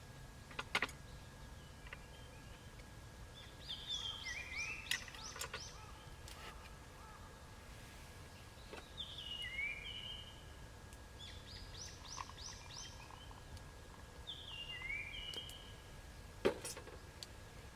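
A bird singing short phrases of quick, stepped chirping notes, repeated every few seconds. A few sharp pops from the crackling campfire come between the phrases, the loudest near the end.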